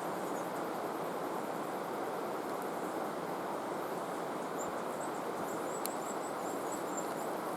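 Steady rush of flowing water, with faint high chirps in the second half and a single small click.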